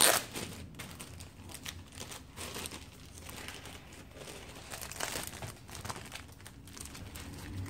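Clear plastic packaging bag around a rolled diamond-painting canvas crinkling as it is handled, with a sharp crackle at the start, then irregular crinkles and clicks.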